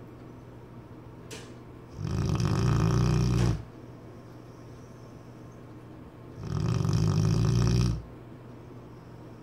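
Cane Corso dog snoring in its sleep: two long, loud snores of about a second and a half each, some four seconds apart.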